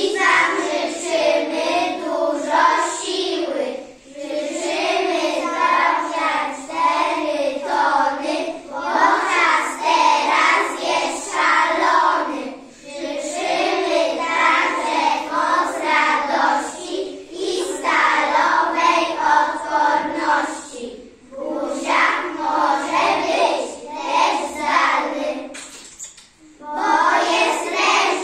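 A group of preschool children singing a song together in unison, with short breaks between phrases.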